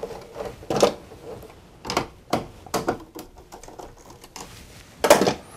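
Irregular clicks and taps of wires with small metal Ilsco tap connectors being handled and pushed back into circuit breaker terminals in an electrical panel, a louder click near the end.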